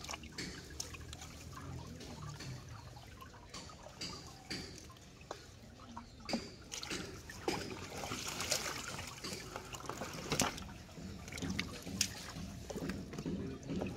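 Water sloshing and trickling in a shallow tarp-lined tank as hands pull a wet cast net off large fish, with irregular small splashes and drips, busier in the second half.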